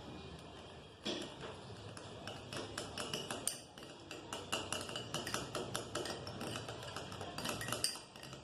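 Spoon stirring and clinking against a plastic bowl of glue and food colouring: quick, irregular clicks and taps several times a second, starting about a second in.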